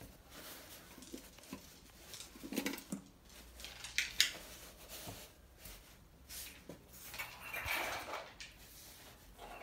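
Hands tucking a thick terry towel around a covered bowl of resting tarhana dough: cloth rustling, with a few light knocks and clinks against the stone counter, the sharpest about four seconds in.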